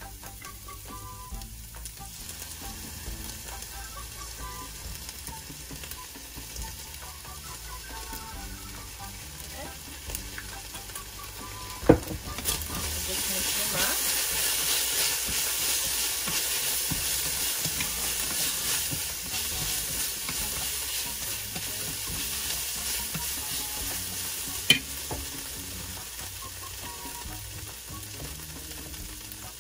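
Shredded chicken with oyster sauce sizzling as it fries in a stainless steel pan, stirred and tossed with wooden chopsticks. The sizzle grows louder from about the middle, with a sharp knock just before and another near the end.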